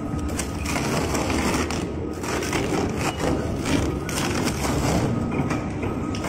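Industrial double-shaft shredder running, its toothed cutter discs gripping and grinding a rubber tire with irregular crunching and scraping.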